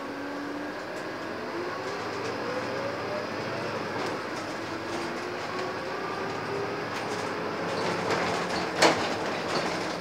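Scania N230UD double-decker bus pulling away and accelerating, heard from inside the saloon. Its engine and driveline whine climbs in pitch, drops back at a gear change, then climbs again. A single sharp knock or rattle comes near the end.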